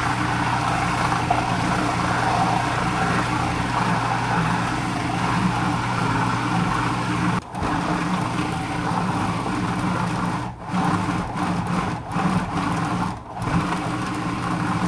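Cuisinart Prep 11 Plus food processor motor running steadily, its blade mixing beer pizza dough until the dough forms a ball and pulls away from the bowl's sides. The sound dips briefly four times in the second half.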